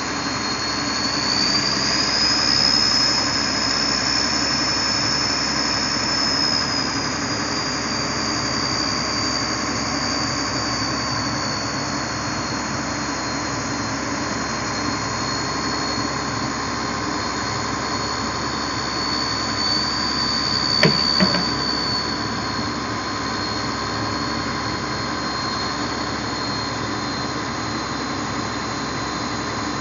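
Pindad excavator's diesel engine running under working load, with a high whine that rises and falls in pitch as the arm moves. Two sharp knocks come close together about two-thirds of the way through.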